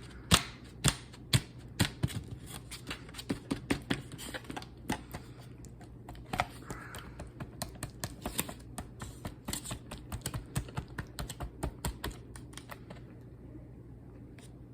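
Rapid, irregular clicking and tapping of a plastic frozen-meal tray as shrimp fettuccine alfredo is scraped out onto a paper plate. The clicks thin out near the end.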